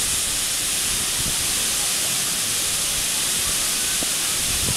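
High-pressure mist nozzles of a fog fountain hissing steadily as they spray fog.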